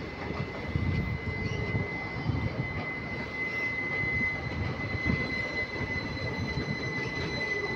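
Passenger train coaches rolling on the adjacent track: a continuous low rumble with irregular wheel knocks, and a thin, steady, high-pitched wheel squeal that grows louder around the middle and again near the end.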